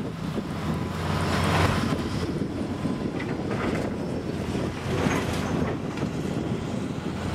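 Low rumble of heavy machinery with swells of clattering, over wind buffeting the microphone.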